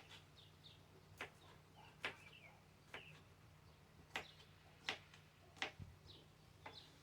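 Knife tapping down onto a cutting board while chopping garlic cloves into chunks: sharp, separate chops about once a second. Faint bird chirps are heard between the chops.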